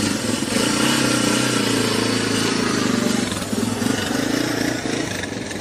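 An engine running steadily, with a low hum under a rushing noise.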